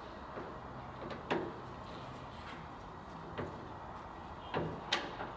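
A few sharp clicks and light knocks of metal hand work on the tail light's retaining screws with a Phillips screwdriver. The strongest comes about a second and a half in, and a quick cluster of three near the end.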